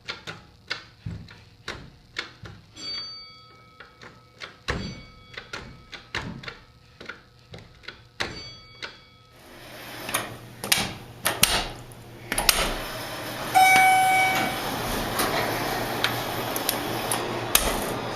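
A string of sharp clicks and knocks over a faint steady high tone, then a louder continuous background noise with more knocks and one short pitched chime about two-thirds of the way through.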